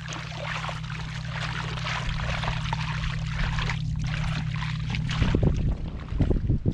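Water splashing and pouring over a steady low hum, with knocks and thuds near the end.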